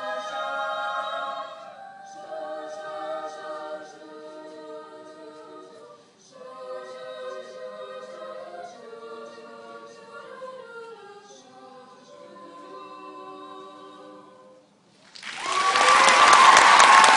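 A cappella vocal group singing sustained chords in the closing bars of a song, pausing briefly twice and ending just before the last few seconds. Then loud audience applause breaks out.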